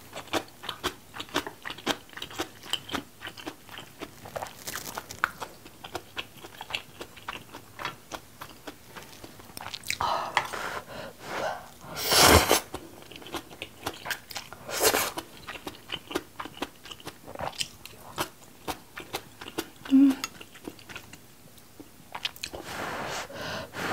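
Close-miked eating of spicy seafood instant noodles: wet chewing and crunching with a steady patter of small mouth clicks. Loud noodle slurps break in, the loudest about halfway through, another a couple of seconds later, and more near the end.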